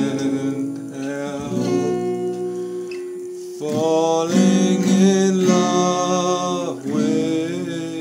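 A man singing slow, drawn-out notes to his own acoustic guitar, strummed and plucked.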